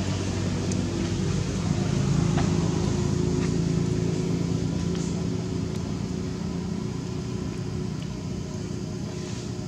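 An engine running nearby with a steady low hum that slowly fades away.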